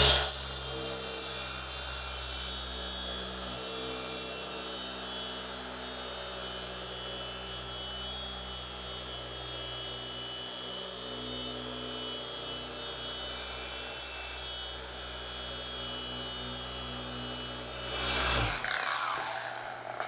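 Cordless dual-action polisher running steadily with a foam pad and heavy-cut compound, cutting bird-dropping etching out of the clear coat. Near the end it gets louder and then stops.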